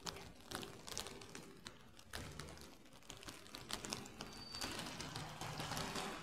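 Footsteps on wet paving stones, short sharp steps at a walking pace, over a faint low hum.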